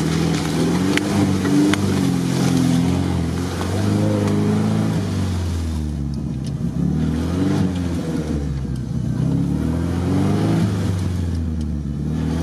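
Off-road 4x4's engine heard from inside the cab, pulling under load at low speed, its revs rising and falling repeatedly as the driver works the throttle.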